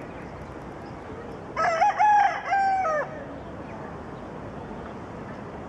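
A rooster crowing once, a segmented cock-a-doodle-doo of about a second and a half, over a steady background hiss.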